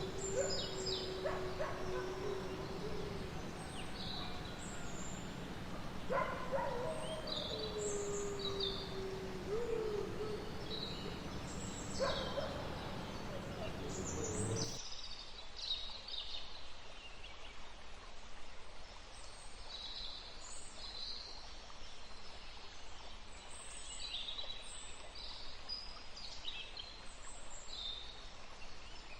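Forest ambience of small birds chirping throughout, with two long, low, steady wolf howls in the first half. About halfway through the background changes abruptly and only the bird chirps continue.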